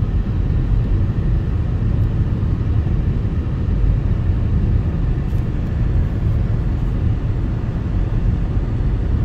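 Steady low rumble of a car driving on a paved road, heard from inside the cabin: road and engine noise.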